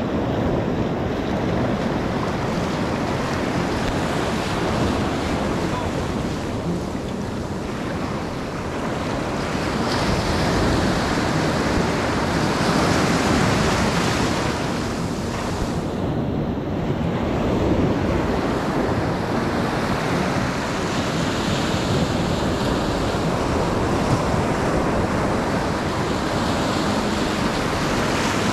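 Ocean surf breaking and washing up the beach, with wind buffeting the microphone; the surf swells louder around the middle.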